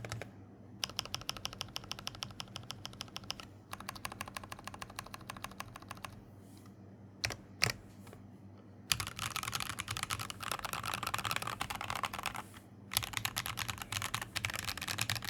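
Typing on a custom KBD67V2 mechanical keyboard with a brass plate, lubed Everglide Dark Jade linear switches and EPBT PBT keycaps. Two runs of quick keystrokes, a short lull with a couple of single clacks, then faster, denser typing to the end.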